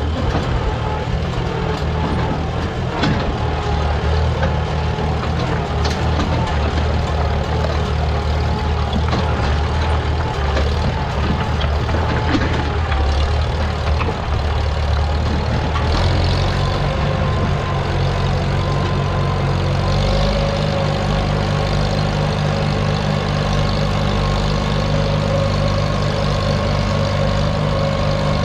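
Small vintage farm tractor's engine running steadily as it tows an implement, with a few short clunks from the hitch and load. The engine note changes about halfway through.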